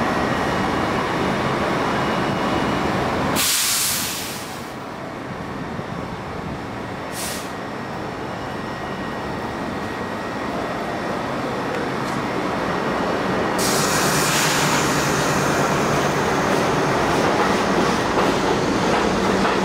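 R62A subway train on an elevated track: a steady rumble of running cars, then two short bursts of hiss, then the train's motors and wheels growing steadily louder from about two-thirds in as it gathers speed pulling out.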